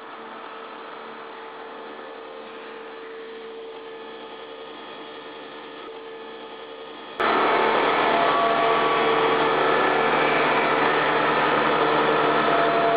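Steady machine hum with several fixed tones, stepping up abruptly about seven seconds in to a louder, noisier steady hum of running machinery.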